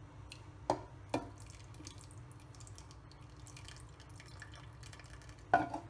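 Tamarind water being poured from a steel bowl into an aluminium pressure cooker of lentils and vegetables: a faint trickle and dripping of liquid, with a few sharp metal clinks, the loudest near the end.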